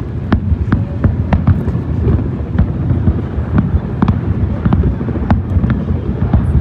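Aerial fireworks shells bursting in rapid succession: sharp cracks about two or three times a second over a continuous low rumble of booms.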